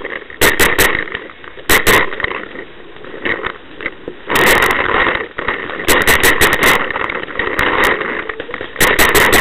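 Brass Eagle Stingray paintball marker firing in quick bursts of two to seven shots, five or six bursts in all, with scuffing and rustling from movement between the bursts.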